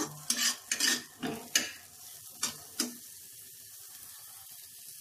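A spatula scraping and tapping against a steel kadhai as chopped onion is stirred in hot oil, over a faint sizzle of frying. The stirring stops about three seconds in, leaving only the steady sizzle.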